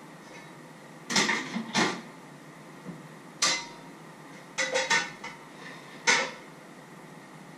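Pots, pans and dishes clattering as they are handled at a kitchen counter: about half a dozen sharp clanks and knocks, some in quick clusters, spread over several seconds.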